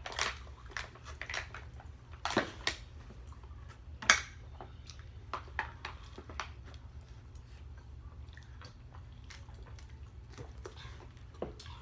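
Eating sounds of a meal of takeout pasta: chewing and mouth smacks mixed with scattered sharp clicks and taps of cutlery against dishes. The clicks come thickest in the first few seconds, with the loudest one about four seconds in, then thin out.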